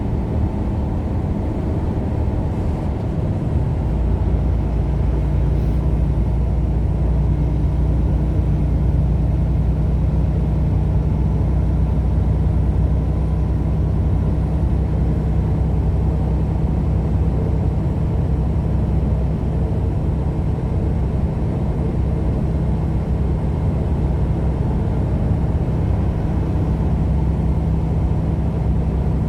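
Car engine and road noise while driving, a steady low drone; the engine note shifts and then holds steady about four seconds in.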